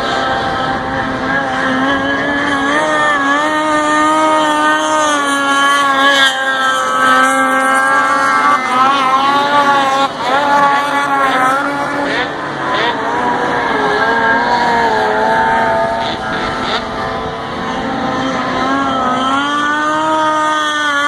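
Snowmobile engines running at high revs as the sleds skim across water, a loud whine that rises and falls in pitch as the riders work the throttle. Around the middle, two engines at different pitches overlap.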